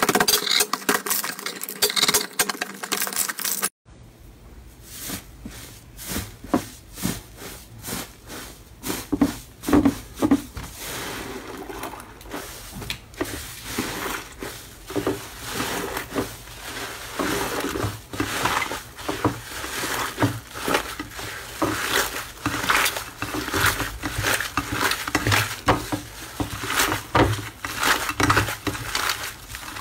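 Hands squeezing, kneading and pulling apart fluffy slime: a dense run of sticky crackles, squelches and small air pops. The sound cuts out abruptly about four seconds in, then the crackling picks up again.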